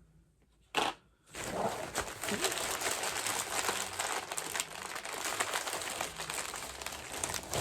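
Mystery pin blind-bag packaging being opened: one sharp rip about a second in, then steady crinkling of the wrapper as it is pulled open and handled.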